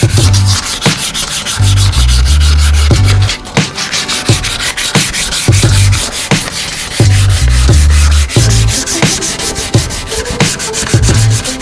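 Hand sanding of a steel car body panel with an abrasive pad to key the surface for coating: brisk back-and-forth rubbing strokes, about three a second. A deep stepping bass line from background music runs underneath.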